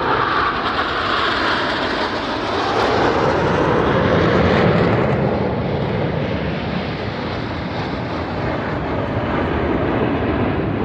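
Aermacchi MB-339 jet aircraft with Rolls-Royce Viper turbojets flying past. Their loud jet roar falls in pitch as they go by.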